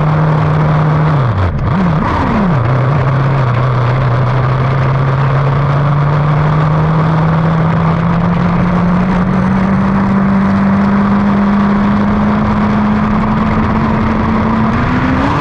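Lightning sprint car engine running hard and steady, its pitch dipping and wavering briefly about a second and a half in, then climbing slowly and evenly as the car keeps pulling.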